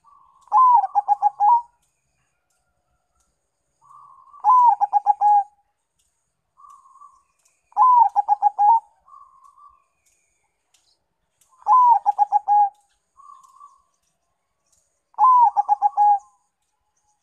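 Caged zebra dove (perkutut), a Bangkok × local cross, singing its cooing song: five phrases about three to four seconds apart, each a rising first note followed by a quick run of short coos. Soft murmured notes come between the phrases.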